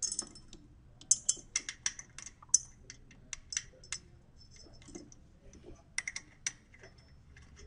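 Irregular light metal clicks and ticks of a 3/16 Allen key being fitted into and turned in the socket-head screws of a valve-positioner mounting bracket. There is a quieter stretch in the middle and a short cluster of clicks near the end.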